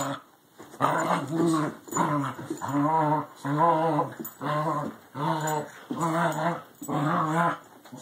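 Two dogs play-growling as they wrestle: a run of about eight short growls, each rising and falling in pitch, about one a second.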